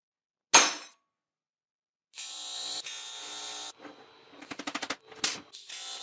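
AC TIG welding arc on aluminum, buzzing steadily in short runs, with a quick rapid stutter of pulses between them. A single sharp knock about half a second in.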